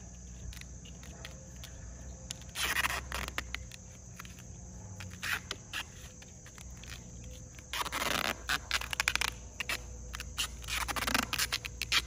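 Duct tape being pulled off the roll and wrapped around a PVC drain pipe joint, in several short ripping bursts, the longest about eight seconds in.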